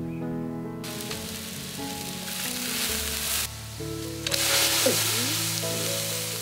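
Pig intestines blanching in a wok of boiling water, a steady hiss and bubbling, over background music. The hiss cuts off suddenly about three and a half seconds in and returns about a second later.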